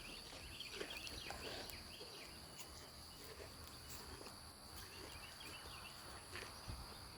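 Faint outdoor ambience of insects: a steady high-pitched drone with scattered short chirps and a few soft clicks.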